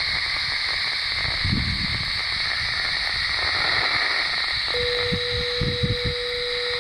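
Steady hiss of static from a FAIR MATE HP-100 wideband radio receiver tuned to the 68.84 MHz municipal disaster-prevention radio channel, with no voice on it. About five seconds in, a steady low hum tone joins the hiss.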